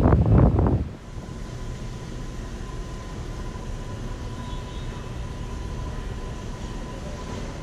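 R143 subway train running: a loud rumbling burst that drops away under a second in, then a steady rumble with a thin, high, steady whine over it.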